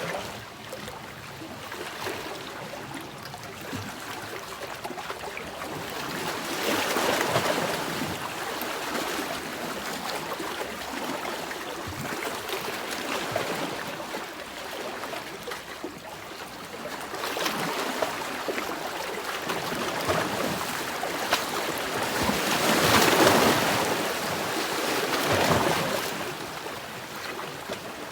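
Sea waves washing ashore as a steady rushing hiss that swells louder and falls back several times, loudest about four-fifths of the way through.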